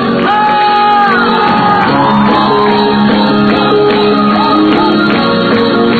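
A live band playing, with a voice holding long, sliding notes over drums and other instruments.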